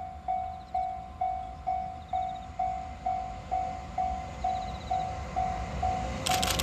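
Japanese level-crossing warning bell ringing its rapid 'kan-kan' tone, about two strokes a second. Near the end, a few sharp clicks and the growing rush of the approaching freight train join in.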